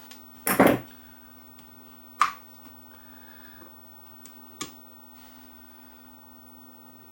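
Hand tools clicking and clattering against a metal radio chassis during bench repair work: a short clatter about half a second in, a sharp click a little after two seconds and a lighter one later, over a faint steady hum.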